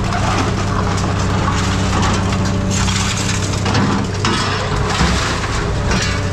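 Scrap metal baler running, its steady machine drone under irregular crackling and crunching as the press crushes scrap metal.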